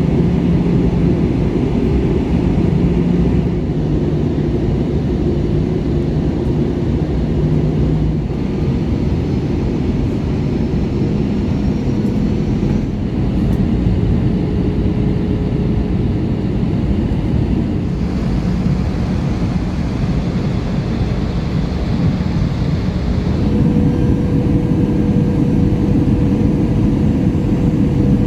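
Airbus A321ceo cabin noise during the final approach and landing: a loud, steady rumble of engines and airflow, with tones that shift as the engine power changes. A few seconds from the end a new steady tone comes in and the noise grows a little louder.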